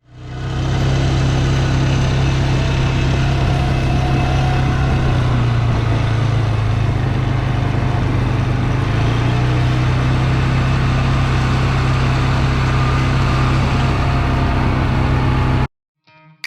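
A large engine running steadily at constant speed, with a deep even drone. It fades in at the start and cuts off abruptly near the end.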